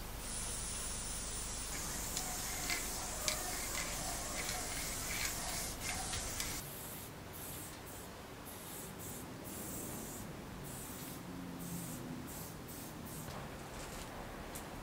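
Aerosol spray-paint can hissing as paint is sprayed onto a wall: a steady hiss for the first six seconds or so, then a run of shorter, separate hisses.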